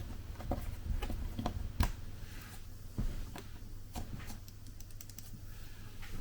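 Scattered light clicks and taps of small parts being handled during laptop hinge reassembly: Phillips screws, a screwdriver and the hinge pieces. Sharper knocks come about two seconds in and again about three seconds in.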